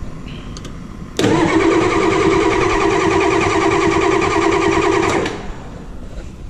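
Starter motor cranking a 6.9-litre IDI V8 diesel for about four seconds without it firing. It cuts in suddenly about a second in, runs at an even, pulsing pace, then stops. The engine is being turned over to purge air from its fuel system.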